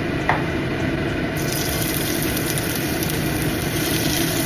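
Pot of water heating on the stove for noodles, a steady rushing sound with a single click near the start. A brighter, watery hiss joins about a second and a half in.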